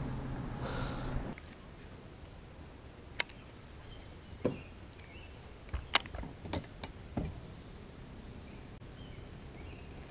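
Quiet outdoor background with a low hum that stops about a second in, then a handful of sharp clicks and knocks of fishing tackle handled on a boat, and a few faint bird chirps.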